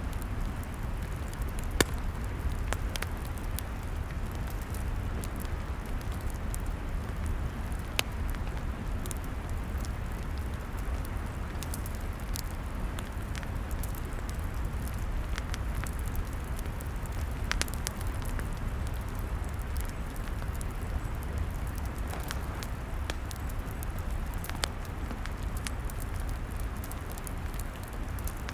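Log fire crackling, with frequent sharp snaps and a few louder pops, about two seconds and eight seconds in, over a steady low rumble.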